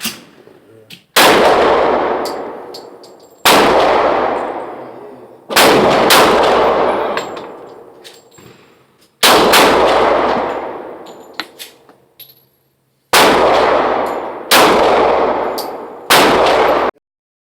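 Pistol shots fired one at a time, about eight in all, each a sharp crack with a long reverberating tail from the range enclosure, mostly a second or two apart with one quick pair. The sound cuts off abruptly near the end.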